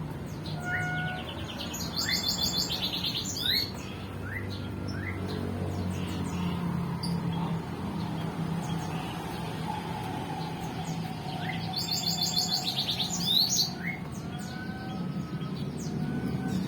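Several birds chirping and whistling, with short clear whistles and quick rising notes, and a loud rapid chattering trill twice, about two seconds in and again about twelve seconds in.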